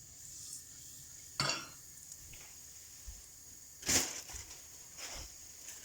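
Mustard, cumin and fenugreek seeds frying in hot oil in a pan for a tempering (vagar): a steady faint sizzle with a few sharp clicks, the loudest about a second and a half in and about four seconds in.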